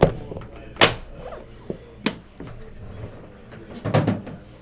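Aluminium carrying case being shut and latched: a handful of sharp knocks and clicks, with a double hit about four seconds in.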